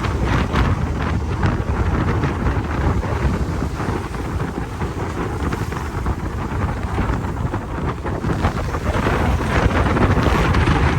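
Strong wind buffeting the microphone: a loud, gusting rumble that swells near the end.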